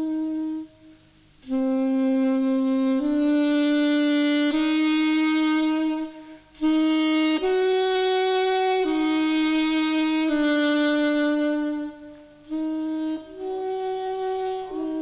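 Music: a solo wind instrument playing a slow melody of long held notes, one note at a time, with brief pauses between phrases.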